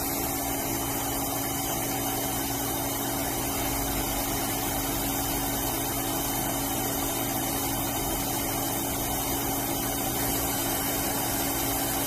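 Axxair orbital TIG welding system running during an automatic weld on stainless sanitary tube: a steady hum and hiss with a few constant tones, unchanging throughout.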